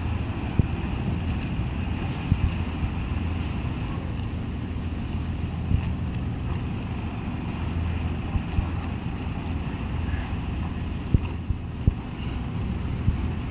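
A moored car ferry's engine running steadily: a low, even rumble, with a few short sharp knocks over it.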